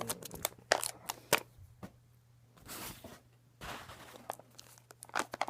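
Shipping packaging around a stack of trading cards being torn open and crinkled by hand, with sharp crackles and two longer tearing sounds near the middle.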